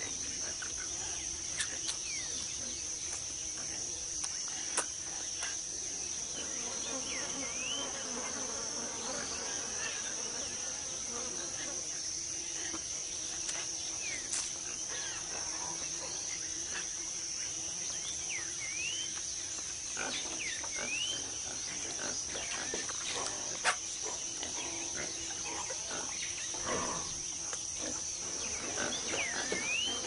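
Tropical rainforest insect chorus: a steady high-pitched drone, with short rising and falling chirps scattered through it and a few sharp clicks.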